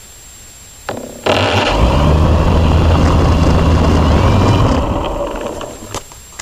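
A motor running close by: it cuts in suddenly about a second in with a steady low hum, holds, then dies away near the end.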